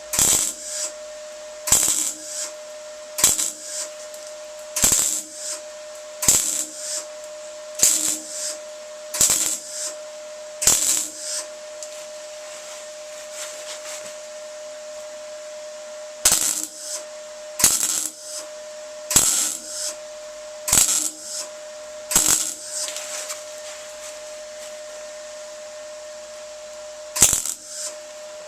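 A series of sharp metallic clicks or taps, roughly one every second and a half, with two pauses of a few seconds, over a steady faint hum.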